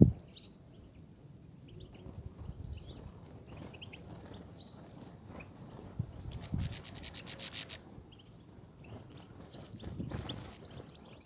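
European goldfinches twittering in short high chirps, with a fast buzzy trill about six and a half seconds in. A sharp thump comes right at the start, with low rumbling underneath throughout.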